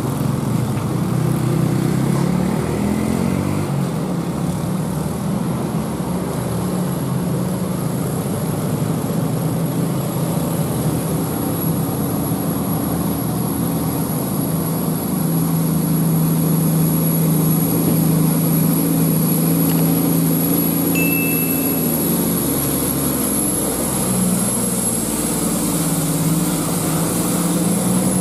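Diesel engine of a heavily loaded Nissan truck running steadily as it climbs a steep grade, along with the engines of other traffic. The engine note shifts pitch a few times.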